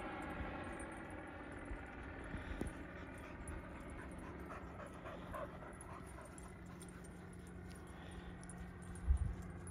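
Distant paramotor's small propeller engine droning overhead, fading over the first couple of seconds and leaving a faint steady hum. A low thump about nine seconds in.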